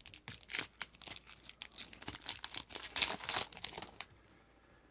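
Trading card pack wrapper crinkling and tearing as it is opened, with quick clicks and rustles of cards being handled; it goes quiet about four seconds in.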